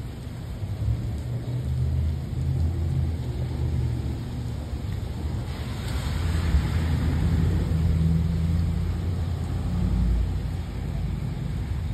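Rain with a steady low rumble underneath that has an engine-like hum in it. About halfway through, a hiss swells up and then fades.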